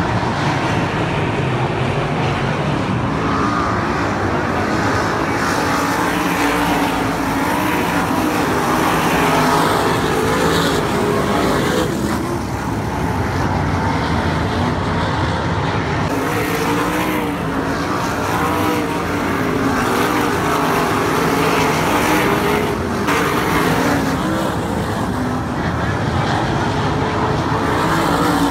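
A pack of winged sprint cars racing on a dirt oval, their engines running loud and continuous, the pitch rising and falling as cars come round and pass.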